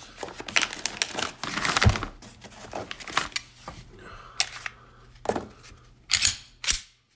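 Thin plastic bag crinkling and rustling as a pistol is pulled out of it, then a few sharp clicks and knocks near the end as the pistol is handled, one with a dull thud.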